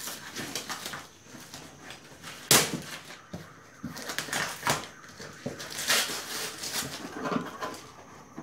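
Packing tape being peeled and ripped off a cardboard box, with cardboard and paper rustling in between; a few sharp rips, the loudest about two and a half seconds in.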